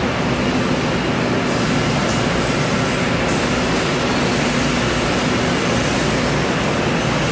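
Walk-behind floor cleaning machine running with a steady mechanical drone and a low hum.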